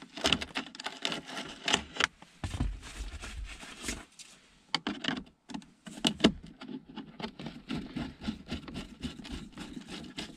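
Screwdriver driving small screws into a plastic BMW E39 cup holder in the dash trim: irregular clicks and short scrapes of the screwdriver against the screw and plastic.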